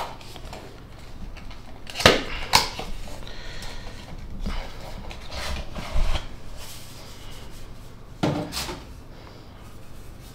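Cardboard box being handled and opened, its paperboard flaps rustling and scraping as a black device case is slid out of it. Two sharp knocks about two seconds in, another about six seconds in, and a rustling scrape about eight seconds in.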